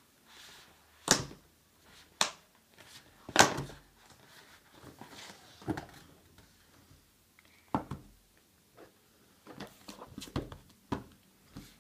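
A smartphone's retail box being opened and its packaging handled: a series of irregular knocks and clicks of the cardboard box and lid, with light rustling of paper between them.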